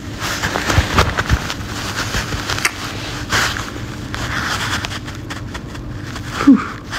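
Irregular rustling, scraping and clicking noises close to a phone's microphone, with a few sharper clicks about a second in.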